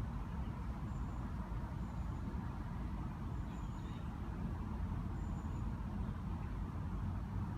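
Steady rumble of road traffic, an even low hum with no single vehicle standing out. A few faint, short high chirps sound over it.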